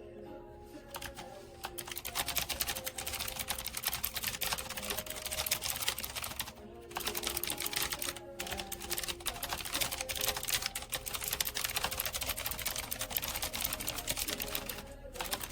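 Fast typing on a pink typewriter-style mechanical keyboard: a dense clatter of key clicks that breaks off for a moment a few times, over soft background music.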